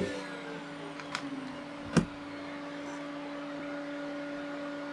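A steady low hum with a few light clicks and one sharp knock about two seconds in, typical of a workpiece being set against a stop block or test-fitted in a dado.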